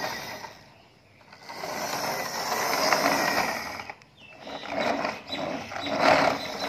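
Plastic toy dump truck rolled by hand across the floor, its wheels and gearing whirring in two long stretches.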